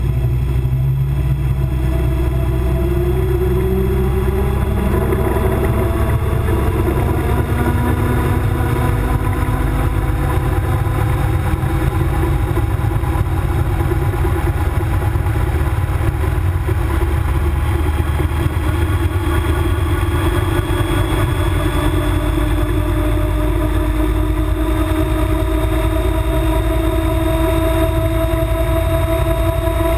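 MTO Sport gyroplane's engine and pusher propeller running steadily on the ground, heard from close up at the tail. The engine pitch creeps slowly upward over the last third.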